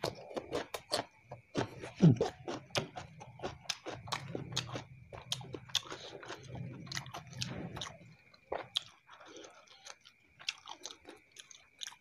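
A person chewing a mouthful of raw cucumber slice and fried rice, with many quick crunches and wet mouth smacks that come thickest in the first eight seconds and thin out after.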